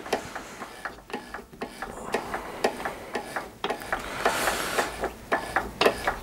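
Irregular light clicks and ticks as the lathe chuck is turned by hand, backing the threading die off the freshly cut thread on a 12 mm steel bar.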